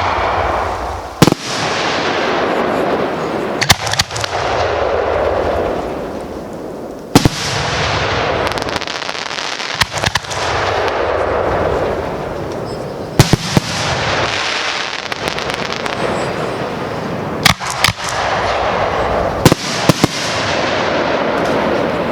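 Aerial fireworks going off in quick succession: a sharp bang every two to four seconds, often in pairs, each followed by a long noisy crackle and echo that fills the gaps between bangs.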